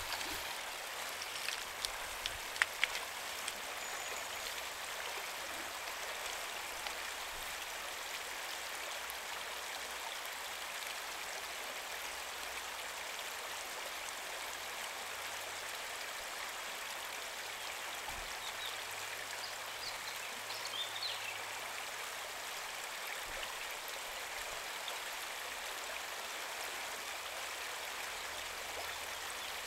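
Shallow river running over a gravel bed, a steady rushing hiss of flowing water, with a few sharp knocks about two to three seconds in.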